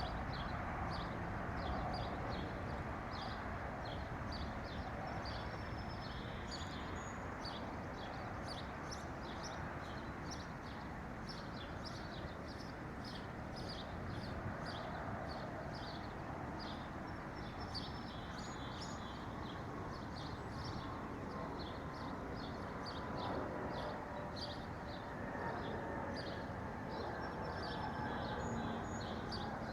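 Small birds chirping and tweeting constantly, many short high calls overlapping, over a steady low background hiss.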